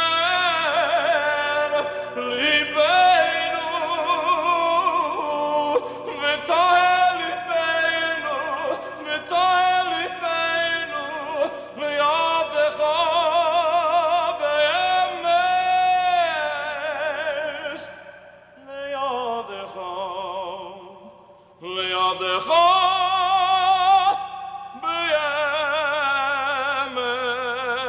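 A cantor's solo voice singing in an operatic style with a wide vibrato, in long held phrases. The voice drops away briefly about two-thirds of the way through, then comes back.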